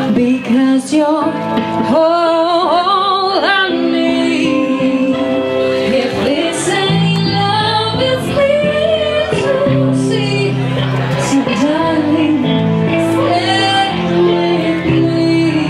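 Background music: a pop song with a female singing voice over sustained chords.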